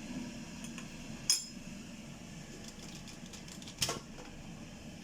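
Two sharp clinks of a coffee cup against crockery or a table, about two and a half seconds apart, the first the louder, over a low steady hum.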